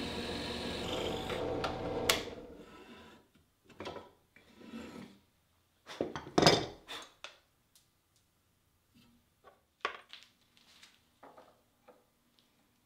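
Benchtop drill press running with its bit in the wood, then a sharp click about two seconds in as it stops, and the motor dies away over the next second. Scattered knocks and short rubs of wooden pieces being handled against the metal table follow, the loudest about six and a half seconds in.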